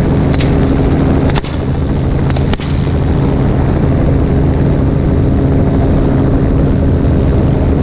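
Helicopter running steadily in flight: a loud, even drone of rotor and engine with steady low tones. A few short clicks come in the first three seconds.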